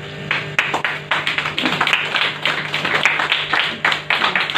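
An audience clapping: irregular hand claps start about a third of a second in and keep going.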